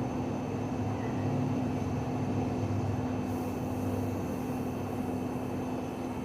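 Steady low hum with one constant pitch, and a faint hiss that comes in about three seconds in.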